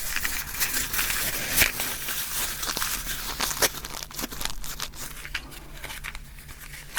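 Close-miked crinkling and scratchy handling noise with many small clicks, busiest in the first few seconds and thinning out after about four seconds.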